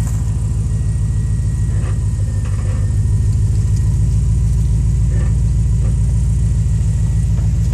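Mercedes-Benz S500's V8 engine idling loud and steady on a cold start, after three weeks standing, with a slight rise in level about three seconds in.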